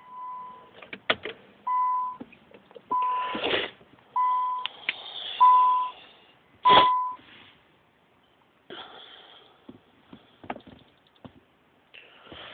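An electronic beeper sounding six short, steady, same-pitched beeps, about one every 1.3 seconds, with handling clicks and rustling between them and after.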